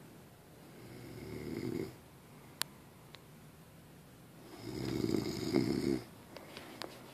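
Snoring: two long snores about four seconds apart, each growing louder and then stopping abruptly. Between them comes a single sharp click, and a few light ticks follow near the end.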